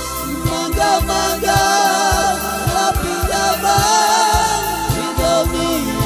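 Romani pop song: sung vocals over a band with a steady drum beat. The singing comes in about half a second in.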